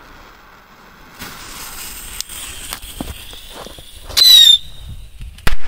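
Small firework rocket going off: a soft hiss for a few seconds, then a loud, slightly falling whistle for about half a second, then a single sharp bang near the end.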